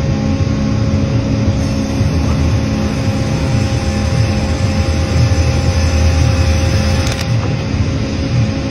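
Cleereman log carriage and headrig saw running while sawing white oak: a steady heavy machinery rumble with a constant whine, and a sharp knock about seven seconds in.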